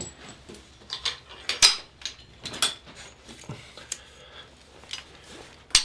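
Metal hand tools and parts clinking and clicking as they are handled, a string of irregular sharp metallic clinks, the loudest about one and a half seconds in and another just before the end.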